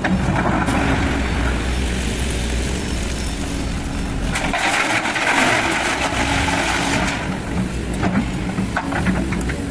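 SANY SY215C excavator's diesel engine running steadily. A louder rushing noise comes in about halfway and lasts a couple of seconds. A few sharp knocks follow near the end.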